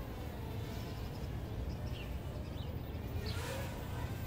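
Small toy quadcopter's propellers buzzing as it flies overhead, with a steady low rumble underneath.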